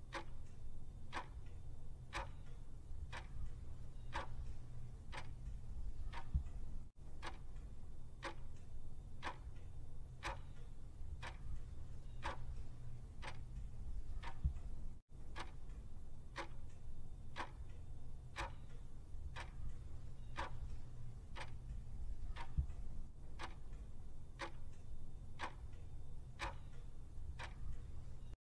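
Countdown-timer sound effect: a clock ticking steadily, about two ticks a second, over a low steady hum. It cuts out for an instant twice.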